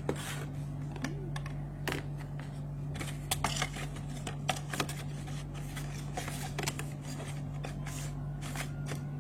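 Hands handling a small plastic device and its accessories during unboxing: scattered clicks and rustles, with a steady low hum underneath.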